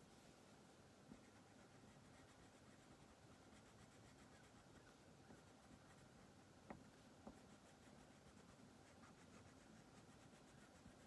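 Wax crayon rubbing faintly on paper in steady coloring strokes, with two soft ticks about half a second apart a little past the middle.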